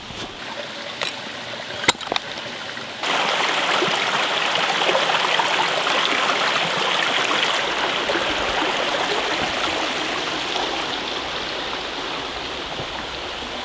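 Two short sharp knocks in the first two seconds, then from about three seconds in a stream running steadily, starting suddenly.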